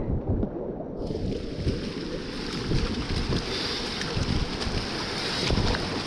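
Rushing whitewater of river rapids, heard close from the kayak, over a constant low buffeting rumble on the microphone. About a second in, the hiss of the water turns abruptly much brighter and fuller.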